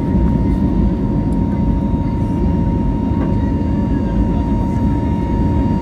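Airbus A320neo jet engines at takeoff power during liftoff and initial climb, heard from inside the cabin: a steady low rumble with a steady whine above it.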